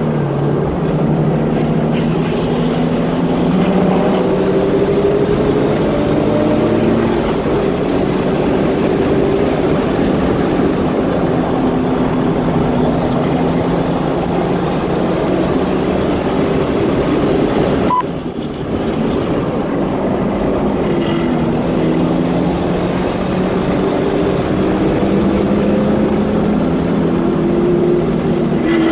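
Car engine pulling hard around a track lap, its pitch climbing and dropping again and again with shifts and corners, with a brief drop in level about 18 seconds in. The exhaust is leaking at the header.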